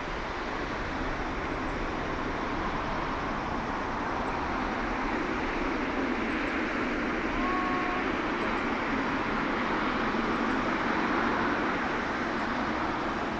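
The twin Rolls-Royce Trent turbofans of a Boeing 777-200ER at take-off thrust during the take-off run and lift-off: a steady jet rumble and rush that grows a little louder near the end.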